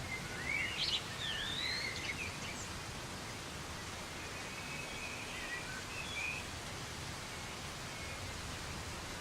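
Steady soft rain hiss with birds calling over it: a flurry of quick whistled chirps in the first two seconds or so, and fainter chirps around the middle.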